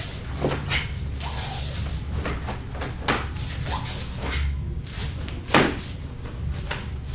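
A string of sharp slaps and snaps, irregularly spaced, from a martial artist's hand strikes and checks as he works through a kenpo form, the loudest about five and a half seconds in. A steady low hum runs underneath.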